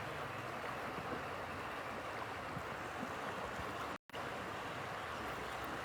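Steady rushing background noise, broken by a brief gap about four seconds in.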